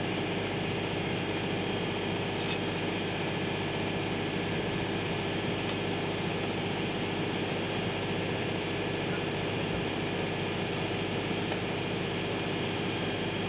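Steady engine drone with a constant hum, holding the same level throughout.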